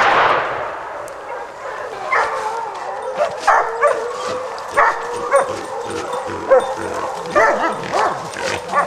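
Hunting hounds barking in short, irregular calls, about ten in all, after the echo of a shotgun shot dies away in the first second.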